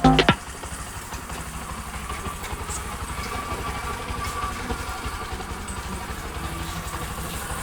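Bajaj Discover 100cc motorcycle's single-cylinder four-stroke engine idling steadily, freshly rebuilt. Background music cuts off just after the start.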